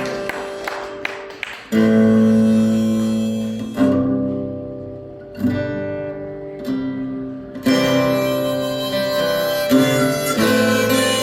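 Live band playing a song's opening: guitar chords struck and left to ring, a new chord about every two seconds.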